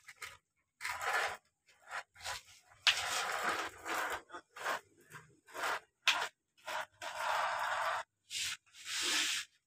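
Plastic toy excavator's front blade and tracks scraping through loose sandy soil, pushed by hand in short, irregular strokes, a few of them about a second long.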